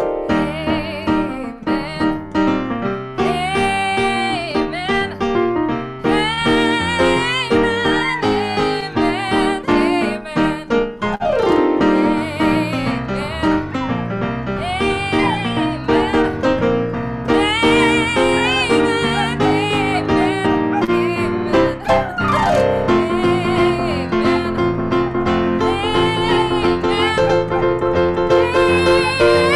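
Piano-led instrumental music, with a wavering melody line carried over the piano chords.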